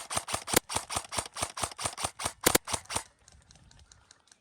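Airsoft gun firing a rapid string of sharp shots, about five a second, which stops about three seconds in.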